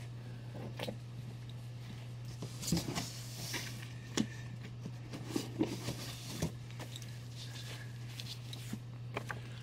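Scattered soft knocks and paper rustles of comic books and cardboard being handled, over a steady low hum.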